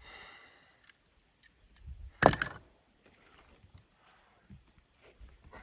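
A single sharp knock or scrape about two seconds in, from handling materials on the roof, over a steady high drone of insects.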